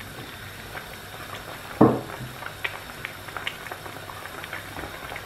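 Fish in yellow spiced broth simmering at a boil in a frying pan, with small bubbling pops throughout. One brief, louder knock about two seconds in.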